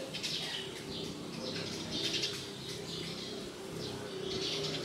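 Birds chirping outdoors, short high calls repeating every half second or so, over a steady low hum.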